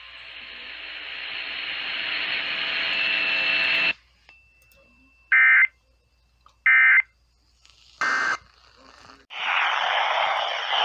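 Radio hiss swelling, then three short Emergency Alert System end-of-message data bursts, warbling digital tones about a second and a half apart, the last one fainter, signalling the end of a weather-radio severe thunderstorm warning. Hiss returns near the end.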